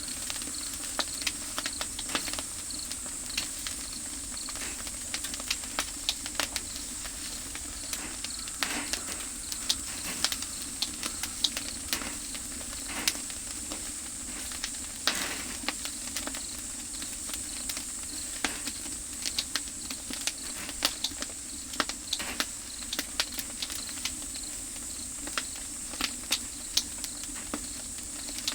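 Oak firewood fire crackling and popping irregularly over a steady hiss, with insects chirping steadily in the background.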